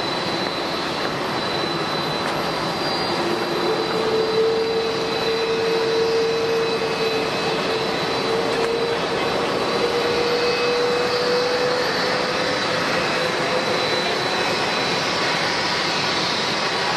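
Jet airliner engines running: a steady rushing noise with a held tone that sets in about three seconds in and fades a few seconds before the end, over a thin, steady high whine.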